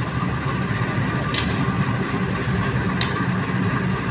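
Diesel locomotive engine idling with a steady low drone, broken twice by a short, sharp hiss about a second and a half apart.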